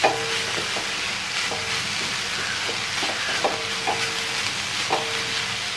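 Chopped amaranth greens sizzling in oil in a metal kadai, cooking in their own moisture with no water added. A wooden spatula stirs them continuously, scraping and knocking against the pan every second or so over a steady sizzle.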